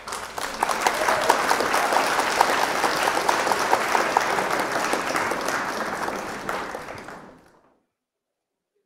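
Audience applauding: dense clapping that tapers off and ends about seven and a half seconds in.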